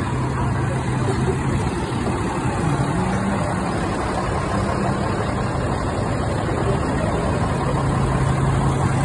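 Diesel engine of a garbage truck idling, its pitch rising for about two seconds from roughly three seconds in before settling back, over a steady wash of street traffic.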